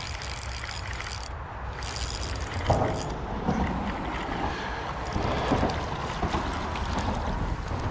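Wind buffeting the microphone in a steady low rumble, with a brief knock about three seconds in and small rustles and knocks after it.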